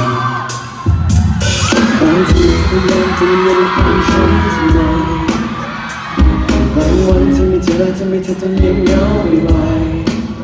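Thai pop song with a pounding drum beat and deep bass, a voice singing over it. The beat drops out briefly twice, about a second in and again around six seconds in.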